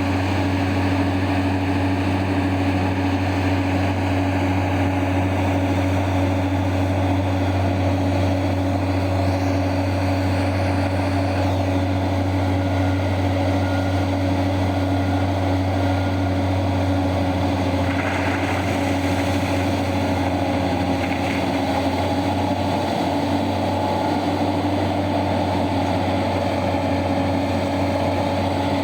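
Heavy mining machinery running steadily: the diesel engines of a large mining excavator and its haul truck, a constant low hum with a steady drone above it. A short burst of noise comes about eighteen seconds in.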